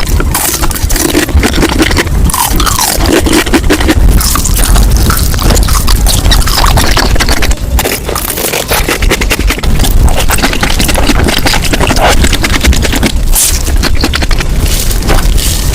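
Dense, rapid crunching and scraping of crunchy food being bitten and chewed, sped up to 2.5 times normal speed.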